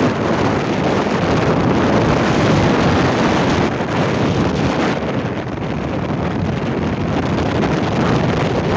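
Steady wind noise on the microphone mixed with the road noise of a moving vehicle.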